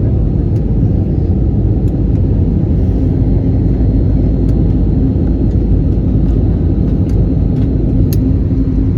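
Steady low rumble inside a passenger jet's cabin, the engines and airflow running continuously, with a faint steady hum joining about three seconds in.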